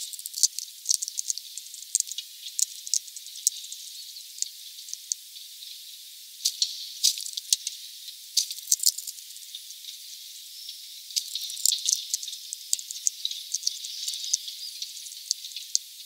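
Hawfinch cracking sunflower seeds and rummaging through a tray of loose husks: irregular crisp clicks and rattles over a steady hiss. The sound is thin, with no low end.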